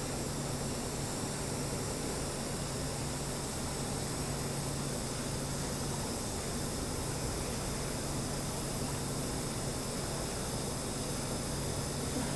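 Steady hiss with a low hum from TIG welding the root pass on 316 stainless steel pipe, running evenly without a break.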